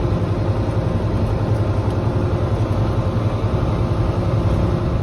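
John Deere 4440 tractor's six-cylinder diesel engine running steadily under way at medium speed, heard from inside the cab.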